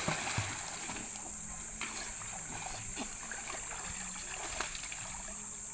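Pool water splashing as a child swims front crawl, arm strokes and kicking feet slapping the surface, with the strongest splashes at the very start. A steady high hiss runs underneath.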